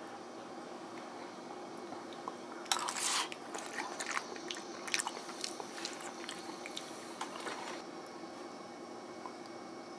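Close crackling and clicking over a steady low hum: a dense burst of crackle about three seconds in, then scattered sharp clicks for about five seconds before it settles back to the hum.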